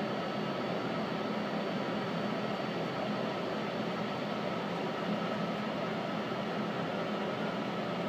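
Steady hum and hiss of a subway car's ventilation fans running inside the car.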